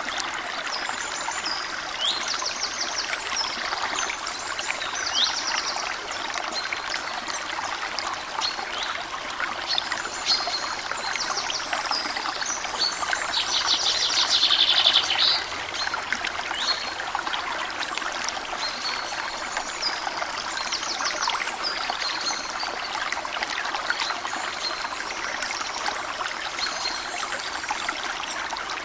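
Small stream trickling steadily over stones, with several birds chirping and trilling over it; a louder, rapid trill about fourteen seconds in is the loudest sound.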